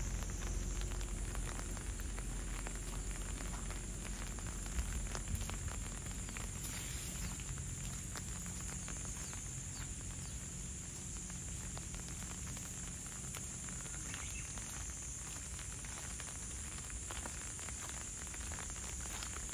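Light rain pattering, with many small irregular drop ticks over a low steady rumble.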